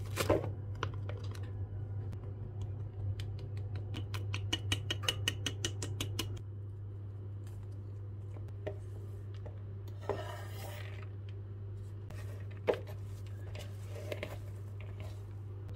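Kitchen food-prep handling sounds. A utensil scrapes ground meat into a ceramic bowl, then a fast run of light clicks follows for about four seconds as spices are shaken in. After that come scattered quieter rubbing noises and a few single clicks as the meat is worked by hand, all over a steady low hum.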